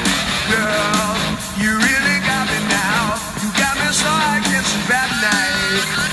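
Rock song playing, with a singing voice over guitar, bass and drums.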